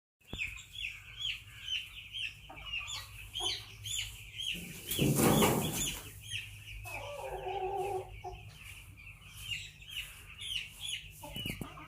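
Chickens calling: short, high, repeated calls two or three times a second throughout. A loud rushing noise comes about five seconds in, and a lower, drawn-out call about seven seconds in.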